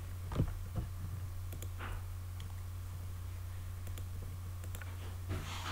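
A few scattered clicks of a computer mouse and keyboard, the loudest about half a second in, over a steady low hum.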